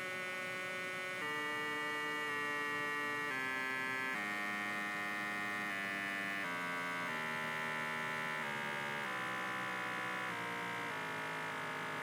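Pulse-driven coil on a five-coil core singing a buzzing hum made of many tones, its pitch shifting in steps every second or so as the pulse frequency is turned with a potentiometer. The builder thinks it may be the plastic former vibrating, or eddy currents pounding on the neighbouring coils.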